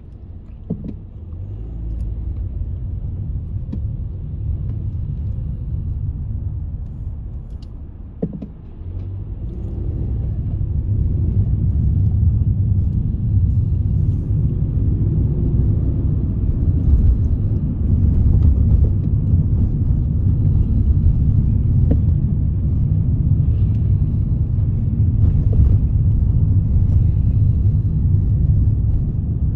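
Low rumble of a car's engine and tyres heard from inside the cabin. It is quieter at first while the car sits in queued traffic, then grows louder about ten seconds in as the car moves off and drives along the road.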